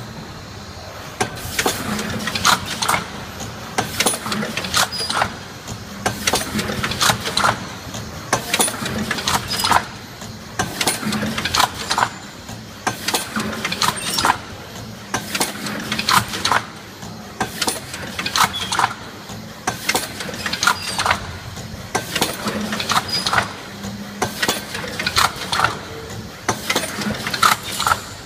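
CP3004 four-lane K-cup filling and packing machine running at speed: a repeating cycle of sharp mechanical clacks and clicks about every two seconds as the tooling indexes, over a steady low hum.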